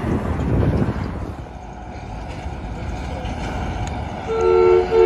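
Garbage truck's two-tone air horn: a short blast about four seconds in, then after a brief break a longer steady blast, loud over the low rumble of a passing truck engine.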